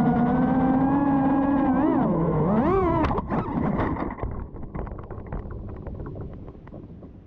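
FPV quadcopter's brushless motors (Velox 2207.5) whining, the pitch dipping and rising with the throttle. About three seconds in the drone hits a chain-link fence with a clatter, and then scattered ticking and rattling fade away as it hangs caught in the wire.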